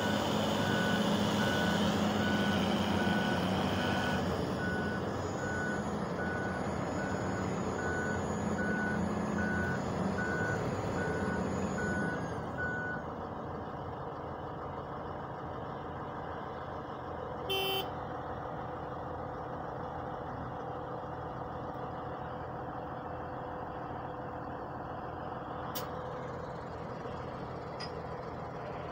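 Diesel engines of heavy machinery (a wheel loader and a tractor) running, with a reversing alarm beeping about once a second for the first dozen seconds, then stopping. A brief sharp sound comes about 17 seconds in.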